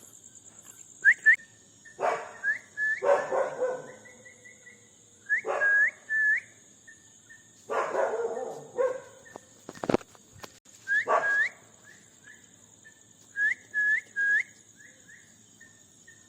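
Short rising whistled notes, in groups of two or three, traded back and forth between a person whistling and a bird answering with the same tune. A dog barks several times in between, over a steady high cricket trill.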